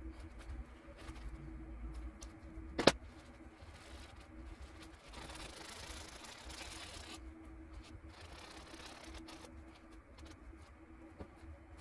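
A rag rubbing against the painted canvas, a soft rustling hiss lasting about two seconds and then again more briefly, with one sharp click a few seconds earlier. A low steady hum sits underneath.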